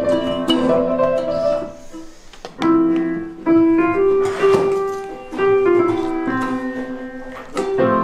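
A piano playing a slow melody over chords, with a short lull about two seconds in before the notes start again.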